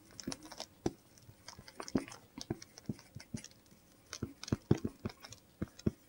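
Marker pen writing on a small handheld whiteboard: irregular taps and short scratches of the tip, a few each second.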